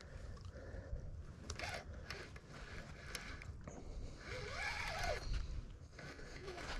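Spinning reel working as a hooked fish is played on the line: a faint, zipper-like whirring with scattered small clicks.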